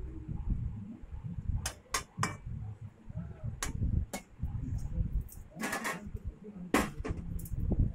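Metal spatula clinking and scraping against a kadai while stirring paneer cubes in simmering gravy: a scattering of sharp clinks, several in quick pairs, over a low steady rumble.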